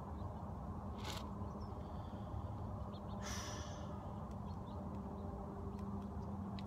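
Outdoor background with a steady low hum and faint bird calls, with two short breathy sounds from a cigarette smoker, about a second in and again around three seconds in.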